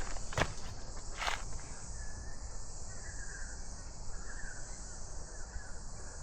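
Steady, high-pitched chorus of insects, with a couple of footsteps on the bush trail in the first second or so.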